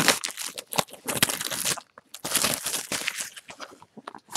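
Plastic wrapping on a trading-card box crinkling and tearing as it is handled and opened by hand, in three spells of rustling.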